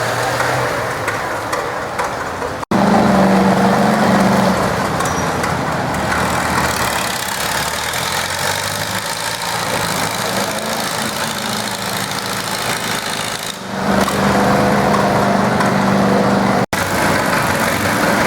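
Farm tractor engines running hard under load as they drag a deadweight sled. The sound cuts abruptly to a different engine about three seconds in and again near the end.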